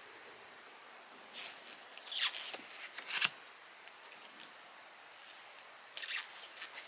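Stiff picture cards in a stack being slid and flipped by gloved hands. A few short card-on-card scrapes and rustles, the sharpest a snap about three seconds in, with more shuffling near the end.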